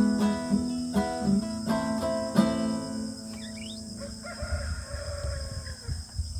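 Acoustic guitar strumming its last chords and ringing out about two and a half seconds in. Then a rooster crows once, a long call.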